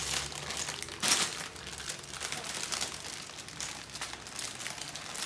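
Plastic packaging of a building block set crinkling as it is handled and opened, with a louder crackle about a second in.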